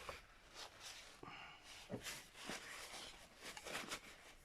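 Faint handling noises: a few small clicks and light rustles, with one sharper tick about two seconds in.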